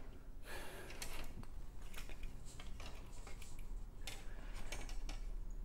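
Plastic model-kit parts trees being handled: scattered light clicks and taps of plastic on plastic, with brief rustles about half a second in and again about four seconds in.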